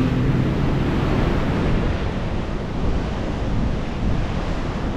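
Sea surf breaking and washing on a sandy beach at high tide, with strong wind buffeting the microphone, making a steady rushing noise.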